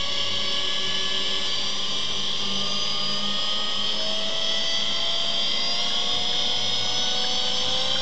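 Silverson high-shear mixer's electric motor and rotor running with a steady whine, its pitch rising slowly from about halfway through as the speed is turned up towards high speed.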